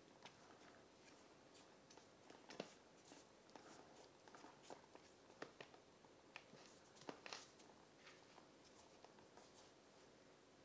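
Near silence with faint, scattered light clicks and taps of utensils handling a cream-filled layer cake, a little more distinct about two and a half and seven seconds in.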